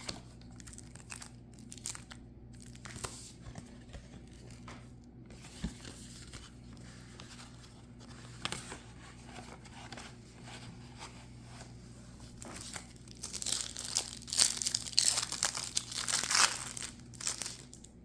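Packaging of a Magic: The Gathering Secret Lair card box being handled and torn open: scattered light rustles and clicks, then a louder stretch of crinkling and tearing over the last few seconds.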